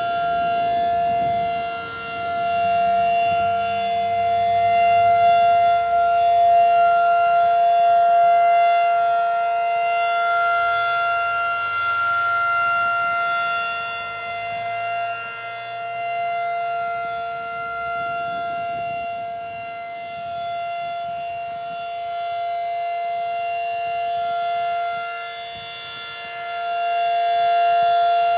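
Federal Signal 2001-SRN rotating outdoor warning siren sounding its steady Alert signal: one held pitch that does not rise or fall. Its loudness swells and fades every several seconds as the rotating horn turns toward and away.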